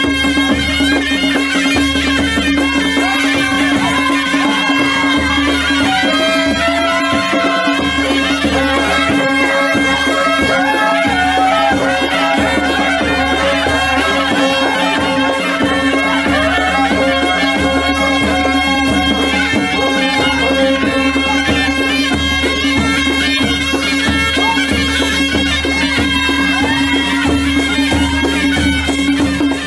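Traditional folk music: a loud, steady drone under a wavering melody that slides between notes, playing without a break.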